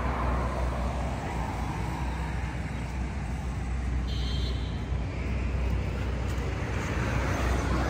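Steady road traffic noise: a low rumble with the hiss of passing vehicles, swelling about five seconds in.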